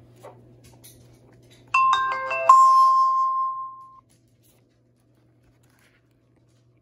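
Digital Life 4K camcorder's power-on chime from its built-in speaker: a short electronic jingle of several quick stepped notes, about two seconds in, ending on a held tone that fades out.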